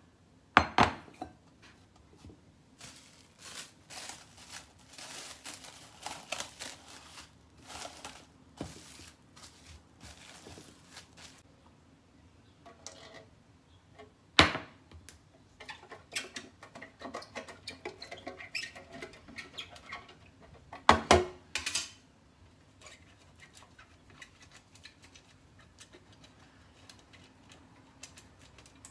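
Kitchen handling sounds: a glass bowl and a metal loaf pan knocked and set down on a stone countertop, with rustling, clicks and light scraping in between. Three sharp knocks stand out: about a second in, about halfway through, and about three-quarters through.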